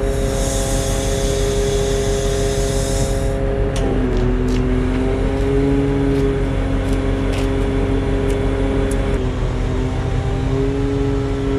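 Truck-mounted hydraulic loader crane working under load, lifting a cable drum: a steady mechanical whine of the hydraulics and truck engine, its pitch dropping about four seconds in and shifting again near nine seconds. A hiss sounds for the first three seconds, with a few light clicks later.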